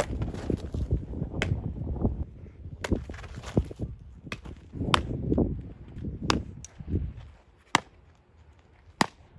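Softball smacking into a catcher's leather mitt about six times, one sharp pop every second and a half or so, over low rumbling noise that dies away about seven seconds in.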